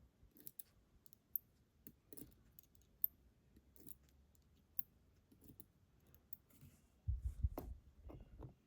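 Small metal parts of a Yale 500 padlock clicking faintly as it is reassembled: scattered light clicks and ticks, then a cluster of heavier knocks and handling noise about seven seconds in.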